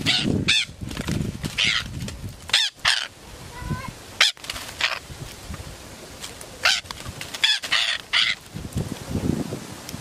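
A parakeet giving repeated harsh, screeching squawks in short bouts while caught and handled: alarm or distress calls from a trapped bird, with some rustling and wing-flapping.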